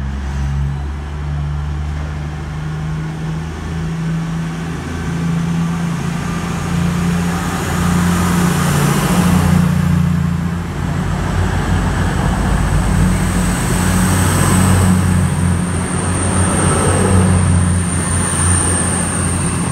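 Class 222 Meridian diesel multiple unit's underfloor diesel engines pulling away, a steady low engine drone that grows louder over the first half. A thin high whine joins it about three-quarters of the way through.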